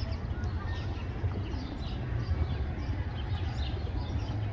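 Sparrows chirping: many short, high chirps overlapping one another, over a steady low rumble.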